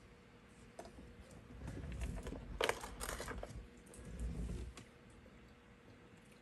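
Handling noise of small plastic LEGO pieces being set down on the cardboard advent calendar scene: light clicks and low rustling, with the sharpest click a little under three seconds in.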